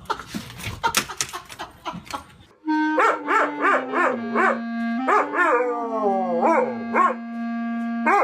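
A dog howling along to music, over an instrument's held, steady notes: a quick run of short rising-and-falling howls, then longer drawn-out ones. It is preceded by about two and a half seconds of scattered clicks and clatter.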